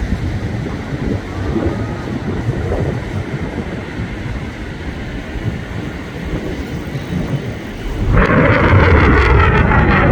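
Lockheed Martin F-35's jet engine rumbling low as the jet flies its display, then about eight seconds in the jet noise suddenly turns much louder and brighter as it comes close.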